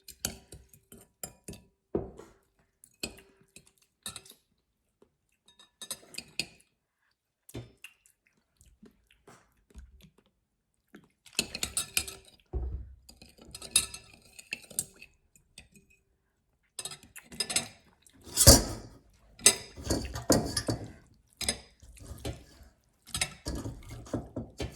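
A spoon clinking and scraping against a bowl in irregular bursts while a spicy salad is mixed, getting busier in the second half, with the loudest knock about three-quarters of the way through.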